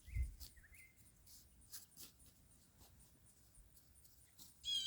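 Faint scratching and clicking of a pocket knife working the soil and cutting weeds around onion seedlings, with a soft thump at the start. Birds chirp faintly, and one short, higher call comes near the end.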